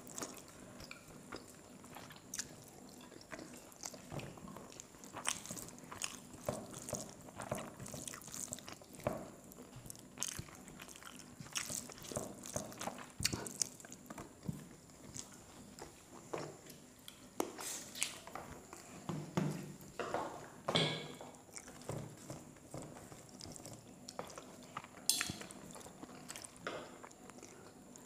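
Close-miked eating by hand: fingers mixing rice and chicken curry on a plate, with chewing and mouth smacks coming as many short, irregular clicks.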